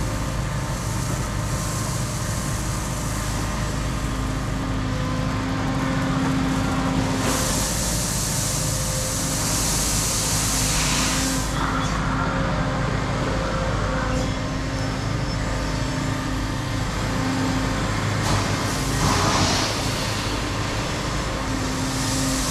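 Cat 335 Next Gen excavator's diesel engine running under load while its hydraulics work. It makes a steady hum with a whine that swells and fades, and a hiss of a few seconds about a third of the way in, with a shorter one near the end.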